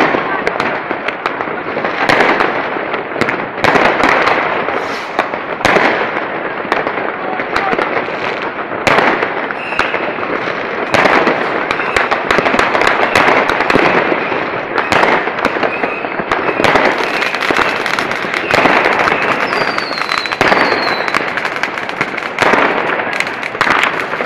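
New Year's Eve fireworks and firecrackers going off all around without a break: a dense, overlapping barrage of bangs and crackling. Near the end there are a couple of short falling whistles.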